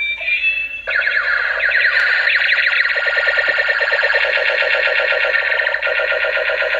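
A battery-operated toy's small speaker playing a fast, warbling electronic siren-like sound effect, starting about a second in after a couple of short beeping tones.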